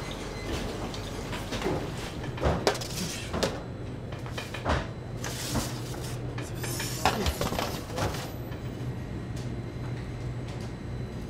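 Clatter of metal bakery utensils and containers being handled: a string of knocks and clanks, some ringing briefly, over a steady low machine hum. The clatter stops a few seconds before the end.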